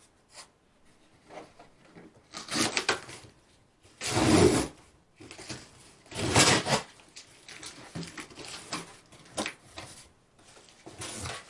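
Handling noises from a box and its packaging being opened: rubbing, scraping and rustling. Three louder bursts come about two seconds apart, with fainter scrapes and clicks between them.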